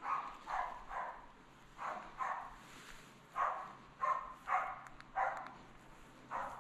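Moose-hunting dog barking over and over, about ten barks at an uneven pace, the steady bay of a loose-running dog holding a moose at bay.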